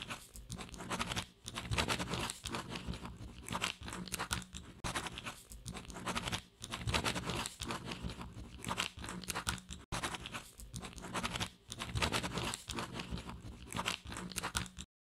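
Pen scratching across paper in quick, irregular strokes, as in handwriting. There is a brief break just before ten seconds in, and it cuts off abruptly near the end.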